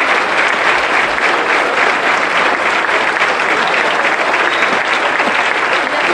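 A large audience applauding: dense, steady clapping that neither builds nor fades.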